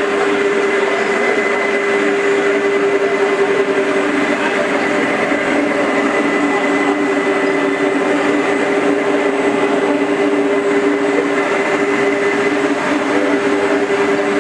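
Gigantic Genie four-headed, counter-rotating 42-inch concrete floor grinder running steadily on concrete: a constant machine drone with a steady tone over an even grinding hiss.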